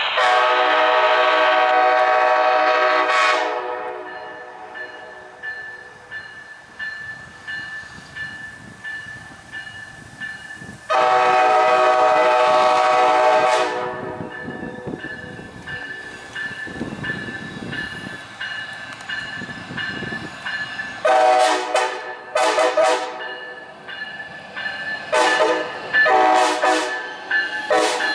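Siemens ALC-42 Charger locomotive's air horn sounding a chord: a long blast at the start, a second long blast about 11 seconds in, then a run of short toots near the end. Between the blasts comes the rumble of the passenger train's wheels on the rails.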